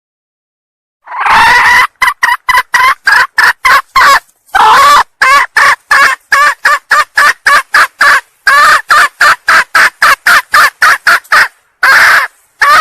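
Female red junglefowl (ayam hutan betina) calling: each bout opens with a drawn-out note and runs into a quick series of short clucks, about four a second, in three bouts with brief gaps. This is a hen's call used to lure junglefowl cocks.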